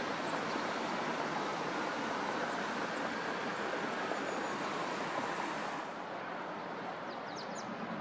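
Steady hiss of distant road traffic, with a few quick, faint high chirps from a small bird near the end. The rooks on screen are not calling.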